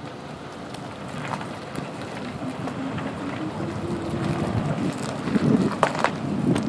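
Wind buffeting the microphone in a steady rumble, growing louder with a few sharp knocks in the last two seconds.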